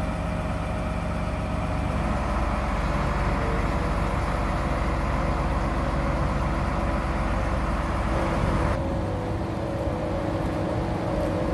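A mobile truck crane's diesel engine running steadily under load during a lift, with a dense low hum and steady tones over it. About nine seconds in, the sound abruptly turns duller.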